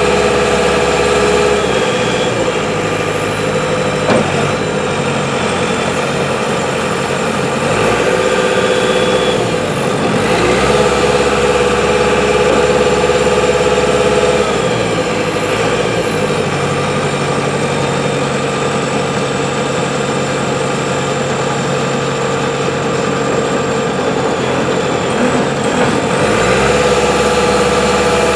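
Diesel engine of a JCB 527-55 telehandler (JCB Dieselmax) running steadily, its note changing several times as the engine speed shifts.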